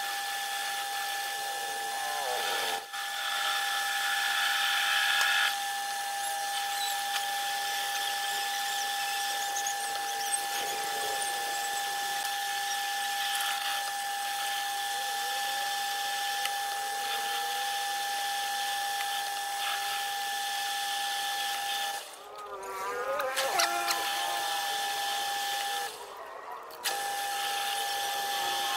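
Metal lathe running, its cutting tool turning down a spinning shaft, with a steady whine over the scrape of the cut. Twice near the end the steady sound drops out briefly.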